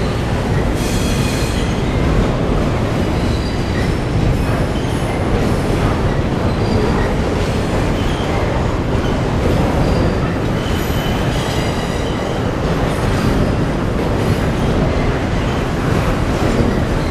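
Double-stack container freight cars rolling steadily over a steel railway bridge, a continuous rumble of wheels on rail. Faint high wheel squeals come in about a second in and again about eleven seconds in.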